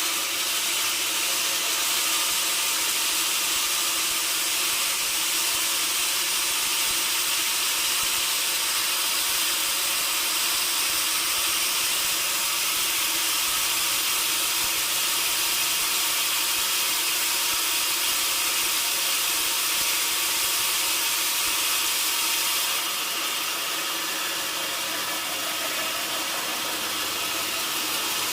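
Sawmill saw cutting through a log: a continuous, steady high hiss that eases slightly about 23 seconds in.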